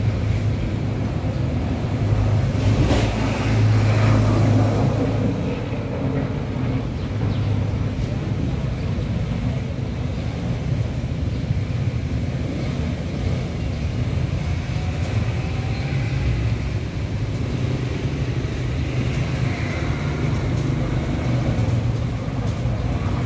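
Steady low mechanical hum with background noise, a little louder between about two and five seconds in.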